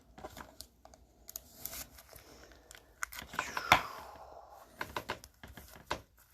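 Trading cards and their packaging being handled: scattered rustling, crinkling and light clicks, with one sharper snap a little past the middle.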